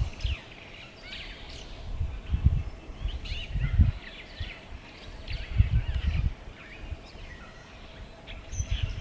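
Several small birds chirping and calling in quick, overlapping short notes, with a few separate bursts of low rumble.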